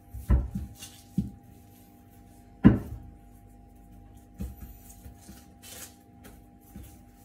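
Dull knocks and taps of hands pressing and shaping baozi dough on a wooden board, with a few in the first second and the loudest single knock near three seconds in, then lighter taps. A faint steady hum runs underneath.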